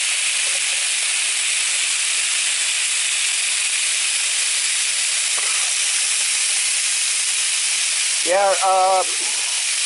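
Thin-cut ribeye steaks sizzling steadily on an electric grill.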